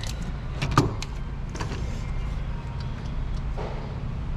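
A few scattered metallic clinks and knocks of hand tools and bolts against the engine, over a steady low hum. The loudest knock comes under a second in.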